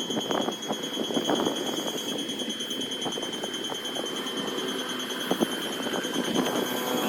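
Japanese railway level-crossing warning bell ringing its repeating electronic "kan-kan" alarm, signalling that a train is coming. It sounds over a steady low rumble.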